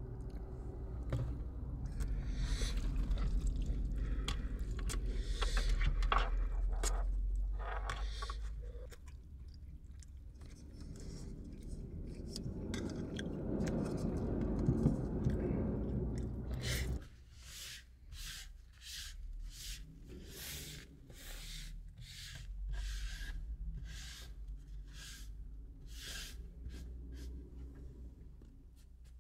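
Close-miked eating: a fork scraping a metal camping pot as it twirls spaghetti, and later chewing, with short soft clicks repeating one to two times a second.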